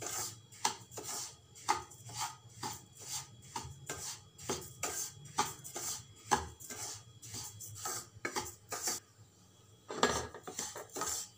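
A spatula scraping and stirring semolina (rava) as it roasts in a nonstick pan, in quick repeated strokes of about two a second, with a short pause about nine seconds in.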